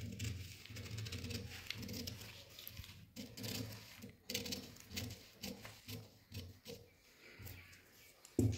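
Scissors cutting through folded pattern paper: a run of faint snips as the blades close, ending about eight seconds in.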